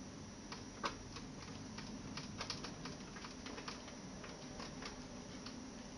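A run of small, irregular clicks and ticks from hands handling metal and plastic parts inside a computer case while a graphics card is being fitted, with one sharper click about a second in.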